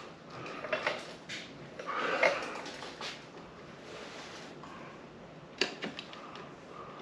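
Metal tools and bicycle brake parts being handled during a brake adjustment: a few clinks and knocks, the sharpest about five and a half seconds in, over a steady air-conditioner hum.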